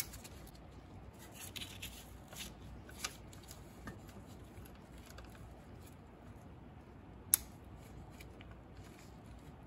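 Scattered light metal clicks and rubbing from a socket wrench and extension as the 10 mm belt-tensioner mounting bolts are loosened and lifted out, with one sharper click about seven seconds in.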